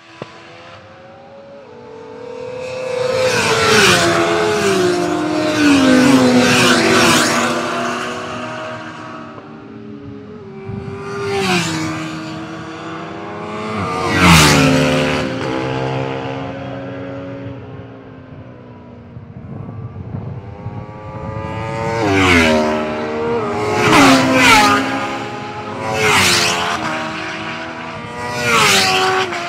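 Sport motorcycles passing at speed one after another, about eight in all, sometimes two close together. Each engine note swells and then drops in pitch as the bike goes by.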